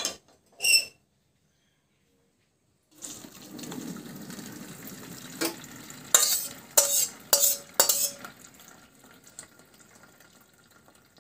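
Boiled chow mein noodles and their hot water poured from a steel wok into a steel colander: a steady rush of draining water, fading near the end. Five sharp, ringing metal clinks of utensils against the steel pans come between about five and eight seconds in. A couple of short knocks come in the first second.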